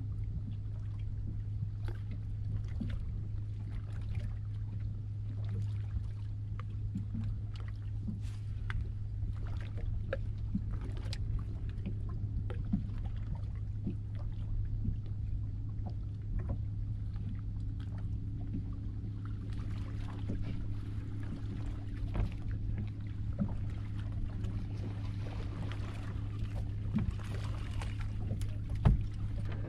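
A steady low hum on a fishing boat, with small splashes and water lapping against the hull as scattered light ticks, and one sharp knock near the end.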